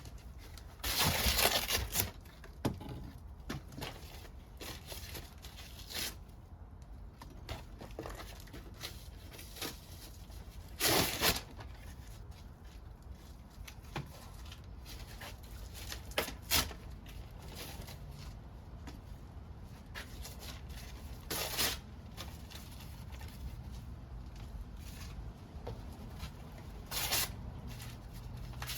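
Scrap-wood fire crackling, with a steady run of small pops and about five louder crackling bursts at intervals of roughly five seconds.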